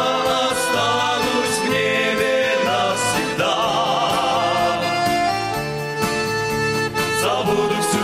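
Men's vocal ensemble singing a gospel hymn in parts over instrumental accompaniment, with held, vibrato-laden notes.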